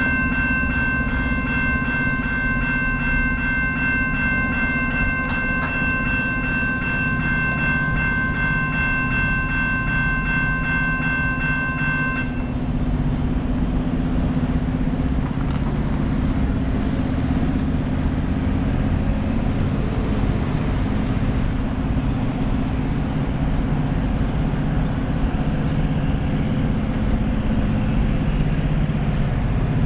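Grade-crossing warning bell ringing in a steady, pulsing single tone for about twelve seconds, then stopping abruptly, over a continuous low rumble from the approaching freight's diesel locomotives.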